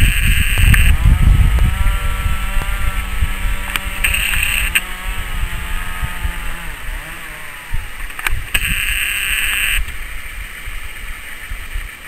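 Wind rumbling on the microphone. A steady motor-like drone runs for about five seconds in the middle, and short high-pitched whines come three times.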